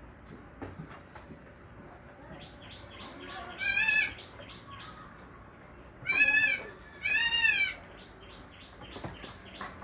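Assam Hill Goat doe in labour bleating three times, loud quavering calls of about half a second each: one about four seconds in, then two close together around six to seven seconds. These are her calls while straining to deliver her kid.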